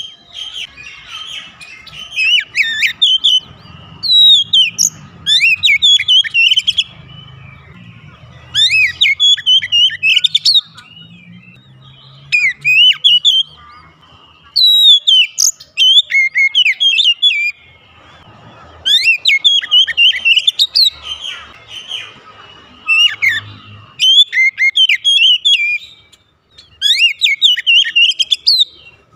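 Oriental magpie-robin (kacer) singing: loud bursts of varied whistled phrases, fast rising and falling notes, repeated every few seconds with short pauses between.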